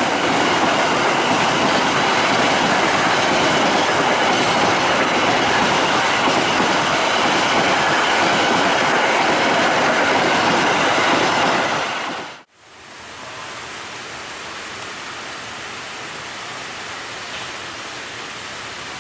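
A train passing at speed close to the track, a loud steady rush of wheels on rail. About twelve seconds in it cuts off abruptly, leaving a quieter steady rushing hiss.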